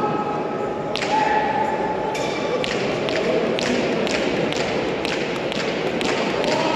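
Irregular sharp taps and knocks, several a second, starting about a second in, over a steady background murmur.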